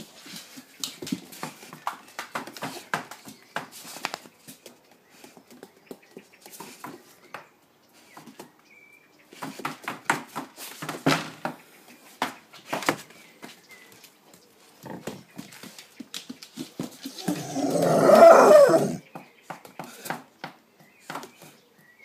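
Staffordshire bull terrier moving about close to the phone on a tiled floor, with many short clicks and scuffles. The dog makes one loud, rough vocal sound lasting about two seconds, a little over three-quarters of the way through.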